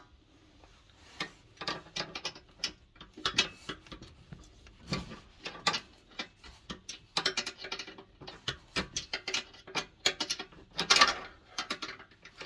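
Irregular sharp metallic clicks and clinks of hand tools working on the fittings of a diesel heater as it is dismantled, some of the clicks coming in quick runs.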